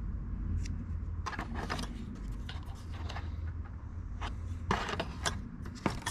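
Sprockets of a Shimano Ultegra R8000 11-speed cassette clinking and rattling as the cassette is handled and set into its cardboard box, with a few sharp clicks in the second half. A steady low rumble runs underneath.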